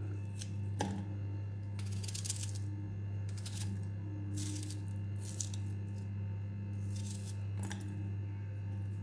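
Knife slicing through a raw onion held in the hand, short crisp crunching cuts every second or so, with a few small clicks as pieces drop into a stainless steel saucepan. A steady low hum sits underneath.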